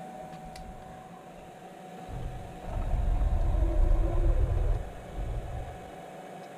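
CNC mini mill's axis drive moving the table on its ballscrew, a low rumble from about two seconds in until nearly five seconds, then a short second burst, over a faint steady hum.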